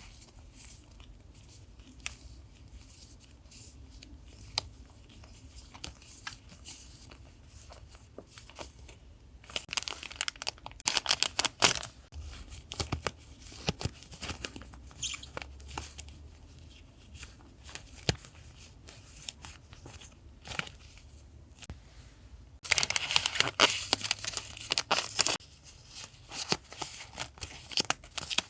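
Paper being handled, torn and crinkled, with scattered light taps and clicks. There are two longer, louder spells of rustling and crackling, one about ten seconds in and one about twenty-three seconds in.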